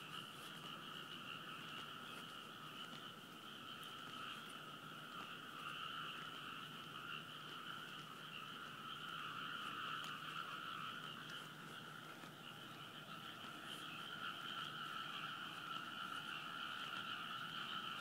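Chorus of many frogs calling together from the rice paddies, a dense, unbroken sound at two steady pitches.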